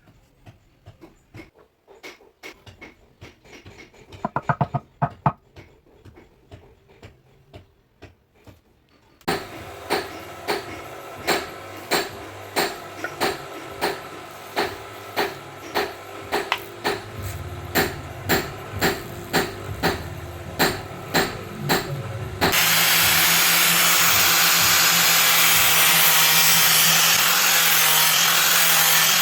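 Work on a steel knife blade: scattered light ticks, then regular strokes about one and a half a second over a steady hum, then a loud, steady power-tool grinding from about two-thirds of the way through.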